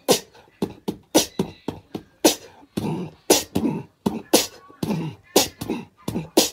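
A domestic cat hissing and spitting in a rapid string of short, sharp bursts, about three a second: a defensive warning.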